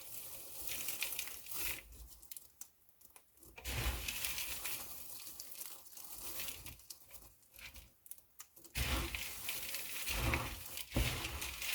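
Soap pieces being crushed and crumbled, a crackling crunch that comes in irregular bursts with short pauses between them.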